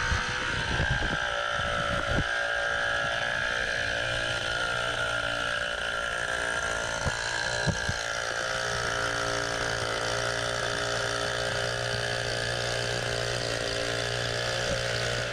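A small motorcycle engine running at a steady, unchanging speed, with a few brief knocks along the way.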